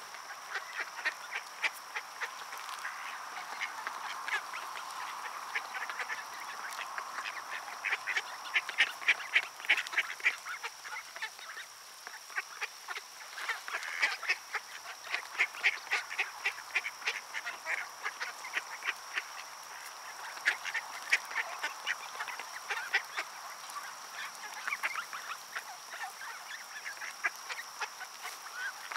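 A flock of mallard ducks quacking, with quick runs of short calls coming on and off throughout.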